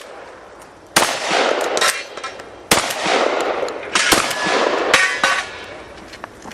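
Shotgun fired four times at an uneven pace, about a second to a second and a half apart. Each shot is followed by a long, rough decay.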